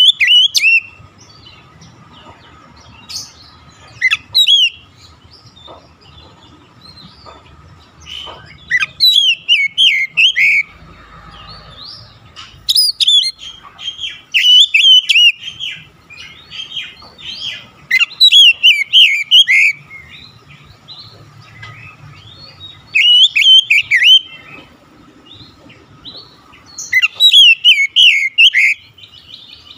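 Oriental magpie-robin (kacer) singing: loud bursts of fast, varied, warbling phrases with sliding notes, each lasting a second or two, separated by pauses of a few seconds.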